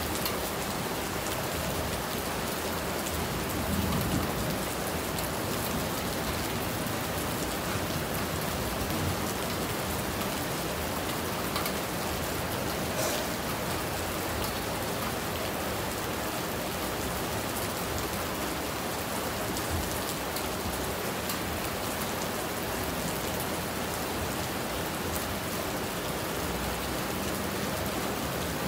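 Steady rain falling, a dense, even patter of drops, with a brief low rumble about four seconds in.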